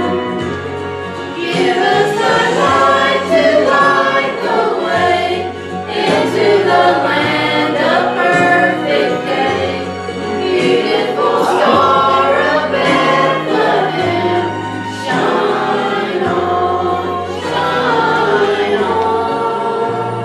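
Small mixed choir of men and women singing together from songbooks, the song drawing to its close near the end.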